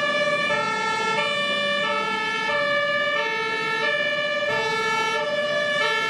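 Two-tone siren of an airport fire truck, alternating steadily between a high and a low note.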